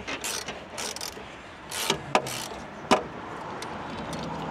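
A wrench clinking as it turns a rusty rear sway bar link nut loose by hand, giving a few sharp metallic clicks at uneven intervals.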